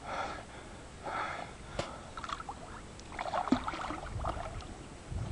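A swimmer in open water blowing out hard breaths at the surface, twice near the start, then water splashing and churning as he ducks under, a little past halfway.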